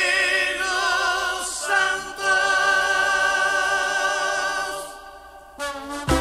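Salsa recording: a group of voices holds one long chord, wavering with vibrato, with no drums under it. Just before the end the full band comes in with percussion and bass.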